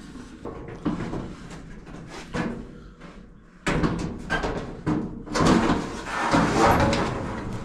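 Sheet-metal dryer parts being handled and fitted during a teardown: a few knocks at first, then a louder stretch of scraping and clattering metal from about four seconds in.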